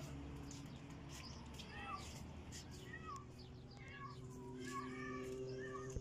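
Many short, high animal calls, some sliding up or down in pitch, scattered over a steady low hum.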